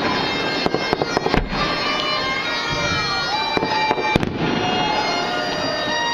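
Fireworks display: aerial shells bursting in irregular sharp bangs, several close together at times, over a continuous layer of sustained high tones.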